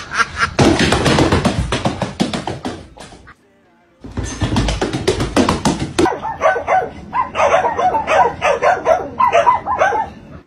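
A mallard hen quacking in quick repeated calls at the very start, then a jumble of animal clips in which dogs bark over music.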